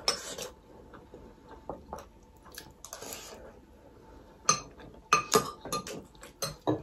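Metal spoons and forks clinking and scraping against glass bowls while eating noodles: scattered sharp clinks, few at first and coming thick and fast in the second half.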